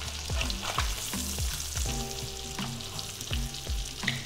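Flounder fillets frying in plenty of butter in a cast-iron skillet: a steady sizzle with scattered crackles and pops.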